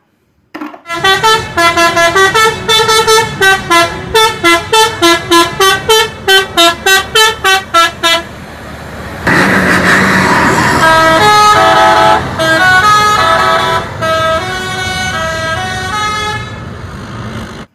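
Multi-tone musical air horn on an Indonesian tour bus, a 'telolet' horn. About a second in it starts rapid short notes, roughly three a second, that jump between pitches. After a burst of noise at about nine seconds it plays a longer tune of held notes, then cuts off abruptly.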